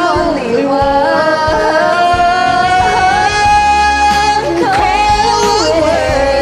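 A solo voice singing long, drawn-out notes that bend and waver in pitch, with a short break a little past halfway, over a pop backing track with bass and a beat.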